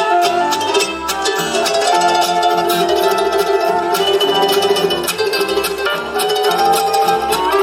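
Background music: a track with plucked string melody over a steady beat and bass.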